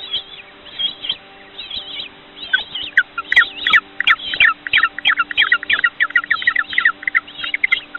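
Birds chirping: short, quick calls, scattered at first, then coming thick and fast from about two and a half seconds in.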